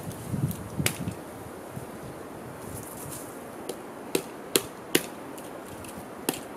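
A handful of sharp, irregularly spaced chops of a hand blade into a cut tree branch, with three strokes in quick succession about four to five seconds in.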